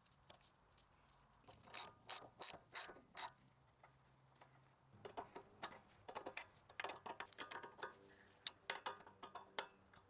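Ratcheting wrench clicking while a bolt on the hydraulic pump's mount is tightened: a few spaced clicks, then after a pause a longer run of quicker clicks.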